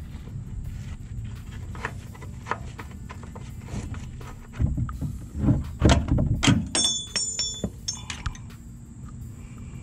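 Rubbing and knocking from a gloved hand handling the camera, louder for a couple of seconds past the middle, then a sharp metallic clink that rings briefly about seven seconds in, from metal parts or tools under the truck's front suspension.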